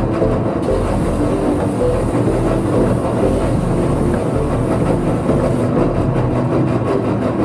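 A steady mechanical drone, with short notes of lo-fi background music over it.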